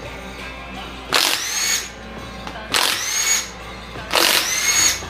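A power drill-driver spinning out the valve cover bolts on an LS V8, in three short bursts. Each burst starts with a rising motor whine.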